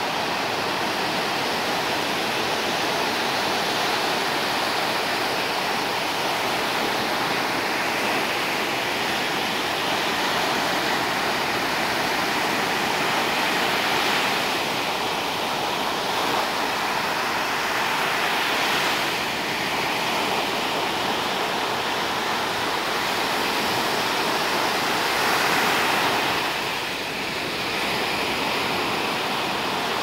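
Rough storm surf breaking on a sandy beach: a continuous wash of waves that swells louder as each breaker comes in and eases between them.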